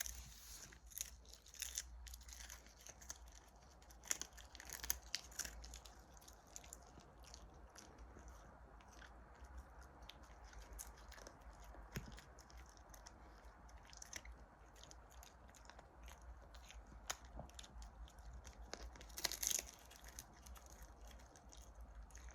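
A dog chewing and crunching a treat: a string of short, irregular crunches and clicks, with a louder cluster near the end.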